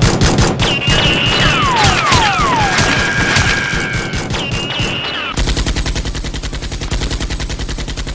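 Rapid, continuous machine-gun gunfire sound effects. In the first half several falling whistles and a held high tone sound over the shots; from about halfway the firing runs on as an even, regular rattle.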